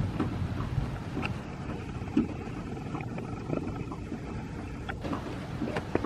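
Storm wind rumbling over the microphone, with scattered light ticks and one sharper tap about two seconds in.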